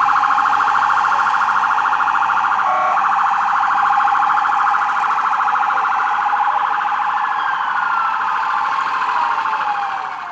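Electronic siren on a police truck: a loud tone held at one pitch with a fast, even pulsing, fading near the end with a falling tone.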